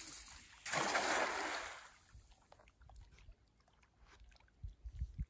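A hand-thrown cast net landing on the water, a broad splash that starts about a second in and dies away over about a second.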